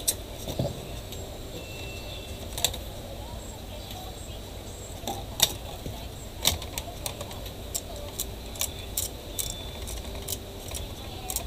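Scattered sharp clicks and taps of an HP laptop's motherboard and heatsink-fan assembly being handled and pressed into its plastic base, the loudest about five and six and a half seconds in, over a low steady hum.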